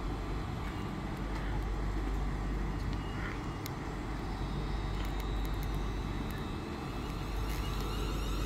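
Steady low rumble of vehicle noise with no rise or fall. A faint high whine comes in about halfway through.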